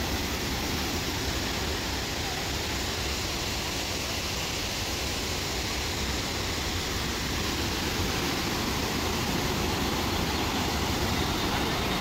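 Steady rush of water pouring down waterfall cascades, an even, unbroken noise.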